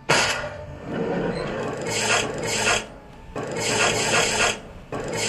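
Scratchy, rubbing noise effect in several surges, with a short break about three seconds in, laid under an animated subscribe-button overlay.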